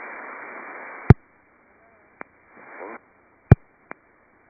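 Aviation radio receiver hissing with open-squelch static that cuts off with a sharp loud click about a second in. Several more clicks follow, the loudest near the end, with a faint, brief garbled transmission between them.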